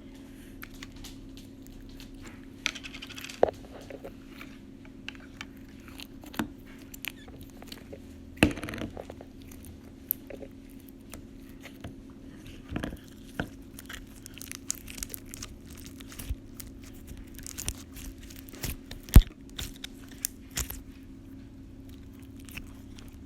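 Homemade slime being squeezed and poked by hand, giving irregular clicks, pops and crackles, with a loud pop about 19 seconds in. A steady low hum runs underneath.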